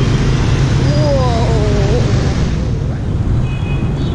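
Dense motorbike and scooter traffic passing close by, under a steady low rumble of wind on the microphone, with a person's "whoa" about a second in. A few brief high beeps sound near the end.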